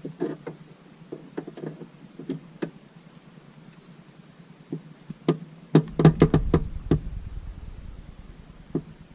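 Sharp knocks and clicks of a steering wheel and its hub parts being handled and fitted onto a car's steering column, with a quick run of louder knocks about six seconds in.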